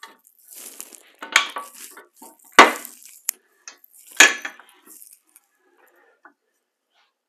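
Table saw rip fence being slid along its rail and set, with metal clunks and rattles: three sharp clunks about a second and a half apart, the middle one loudest, with lighter knocks between.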